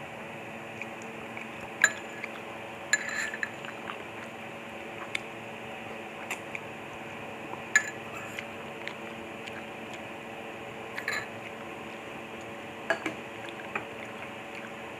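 Eating lomi noodle soup: a fork and spoon clink sharply against the bowl about five times, with soft slurping and chewing between the clinks, over a steady background hum.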